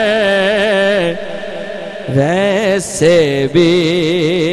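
A man singing a naat into a microphone, drawing out long wavering notes with vibrato and no words to be made out; a new phrase rises about two seconds in and is held to the end.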